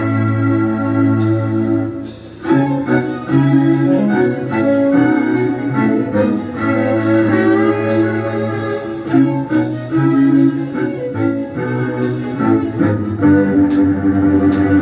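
Rock music with sustained guitar chords, a steady bass line and drum and cymbal hits, with a brief drop in level about two seconds in.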